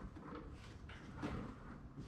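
Faint, irregular light knocks and rustling from hands handling parts and tools.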